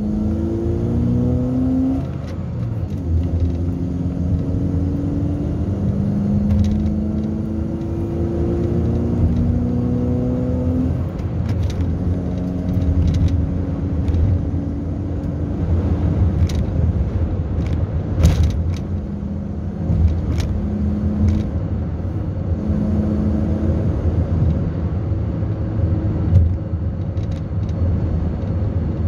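Car driving, heard from inside the cabin: a steady low road and engine rumble, with the engine's pitch rising several times in the first half as the car picks up speed, then holding steady. A few short light clicks stand out over it.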